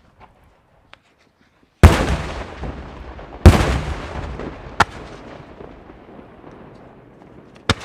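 Daytime aerial firework shells bursting overhead: two very loud bangs about a second and a half apart, each trailing off in a long rolling echo, then two shorter, sharper cracks.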